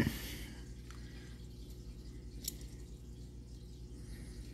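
Small metal clicks and knocks from the parts of a Whitneyville No. 1 1/2 .30 rimfire pocket revolver being worked by hand while its mainspring is fitted against the hammer. A knock comes right at the start and a sharp click about two and a half seconds in, over a low steady hum.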